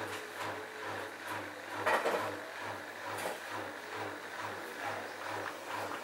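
Bosch front-loading washing machine on a rinse cycle, the drum turning with wet laundry and water sloshing. A low hum pulses about three times a second, with a louder surge of sloshing about two seconds in.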